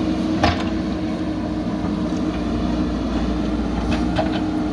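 Backhoe loader engine running at a steady drone, with a single sharp knock about half a second in.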